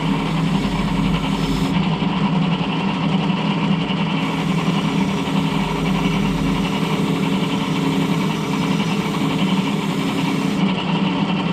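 A small motor, most likely a hand-held power tool used on the hinges, running steadily at a constant pitch: a loud, even hum with overtones.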